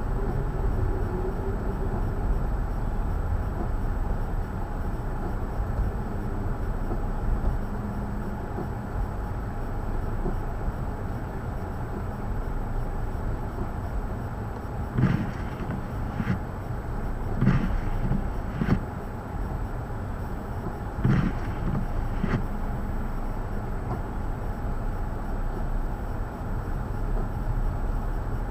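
Steady low outdoor rumble during a snowstorm, with a handful of short knocks a little past halfway.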